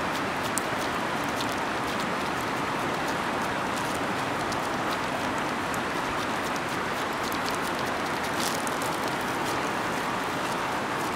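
River water flowing: a steady rushing noise that holds at one level, with scattered faint light ticks over it.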